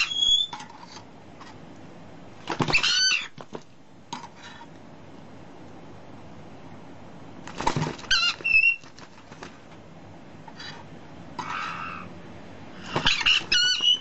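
Parrots calling in short bursts of bending, high-pitched cries, a few seconds apart, with a few sharp clicks between.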